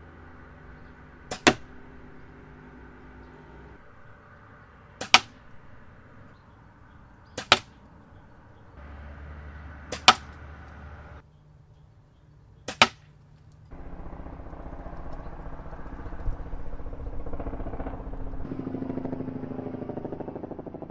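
Slavia 618 spring-piston air rifle firing five single shots, each a sharp crack with a small click just before it, its piston resealed with hot glue in place of a burnt leather seal. A steady noise follows for the last several seconds.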